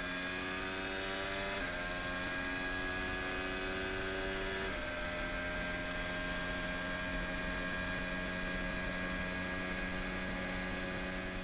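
Formula 1 car's turbocharged V6 engine running at high revs, its pitch rising slightly and then stepping down at upshifts about one and a half and about five seconds in, then holding a nearly steady pitch.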